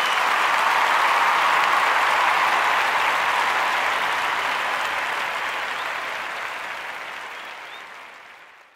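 Crowd applauding and clapping. It swells briefly, then fades out steadily toward the end.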